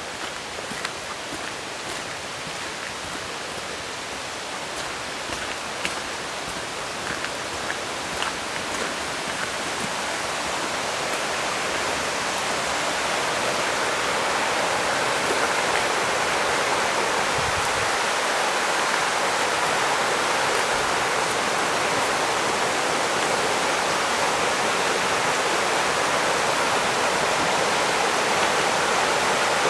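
Rushing water of a rocky forest stream running over rapids, a steady rush that grows louder for about the first half and then holds steady. A few light ticks sound in the first several seconds.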